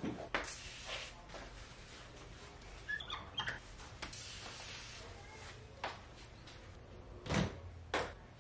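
Hand cleaning: a cloth wiping and rubbing over a painted door and a mirror, in short scrubbing strokes, with a few brief squeaks about three seconds in and a soft thump near the end.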